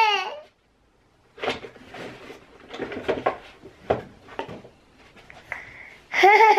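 A toddler's high-pitched squeal breaks off, followed by a few seconds of scattered knocks, clicks and rustling as things are handled and set down on shelves, with one sharper knock midway. The toddler's high voice comes back near the end.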